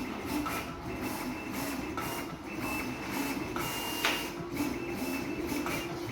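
A330 automatic decal cutting plotter running: its motors whine in short, repeated moves with occasional clicks as the cutting head and paper feed shift.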